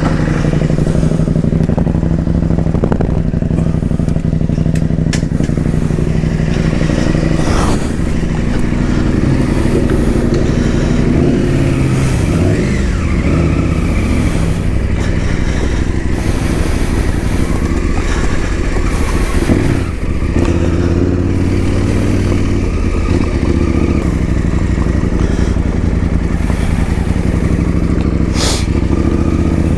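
KTM 890 Adventure R's parallel-twin engine running while the motorcycle is ridden, its pitch rising and dipping with throttle and gear changes.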